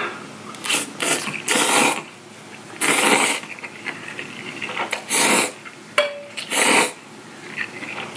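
Bibim-myeon noodles slurped from chopsticks in about six separate sucking bursts, some short and some near half a second long.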